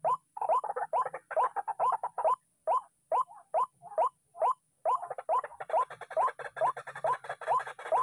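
White-breasted waterhens calling: a short upward-rising call repeated about two to three times a second, with more calls overlapping in between, growing denser and rougher from about halfway through.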